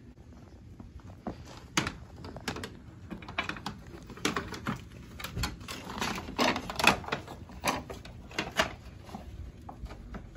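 Irregular hard plastic clicks and knocks, roughly one or two a second, as a ZL1 1LE grille is handled and pressed into a 5th-gen Camaro's plastic front bumper cover.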